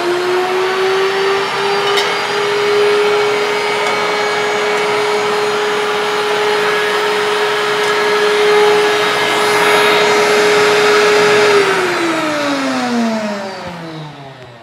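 Countertop jug blender puréeing blanched broccoli and spinach: the motor runs at a steady high speed, then winds down near the end with a falling pitch.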